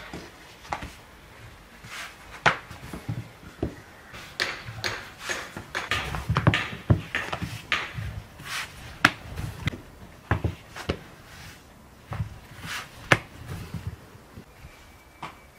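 Thin dough being rolled out with a long wooden rolling pin on a wooden board: irregular knocks and clacks of the pin against the board, with dull thumps as the pin and hands press the dough.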